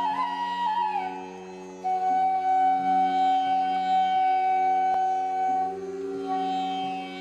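Instrumental background music: a melody glides between notes, then holds one long note, over a steady drone.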